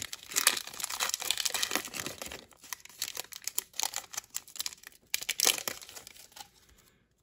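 Foil wrapper of a Panini Donruss Optic football card pack crinkling and tearing as it is ripped open and the cards are slid out. The crackling is dense and irregular and dies away near the end.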